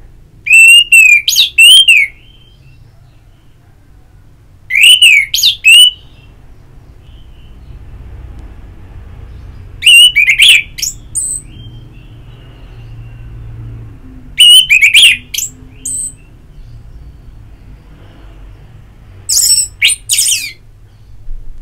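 Orange-headed thrush singing: five short, loud phrases of quick sliding whistles, one about every five seconds.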